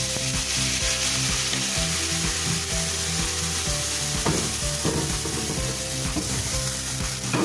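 Homemade rum sizzling and hissing steadily as it hits a hot frying pan, with a couple of short knocks of the pan being handled.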